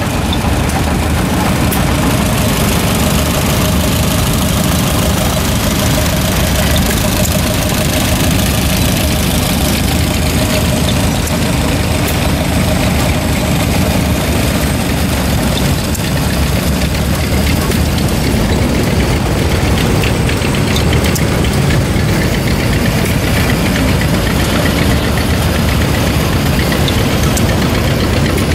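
An engine running steadily and loudly at an even speed, with no change in its beat.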